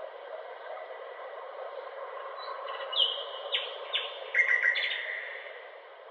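A bird singing a short phrase of sharp chirps, some falling in pitch, that starts about halfway through and is loudest near the end of the phrase. It sits over a steady, even background hiss.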